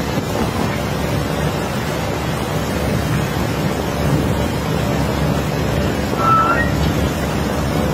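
Steady low rushing noise with a faint hum through it, and a short rising chirp about six seconds in.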